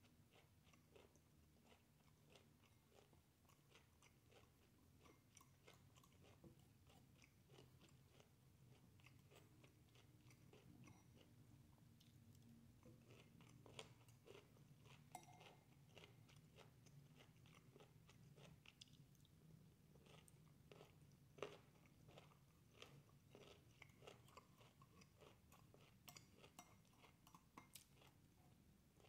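Faint chewing of broccoli, with a metal fork now and then clicking and scraping against a ceramic bowl; one sharper click comes about two-thirds of the way through.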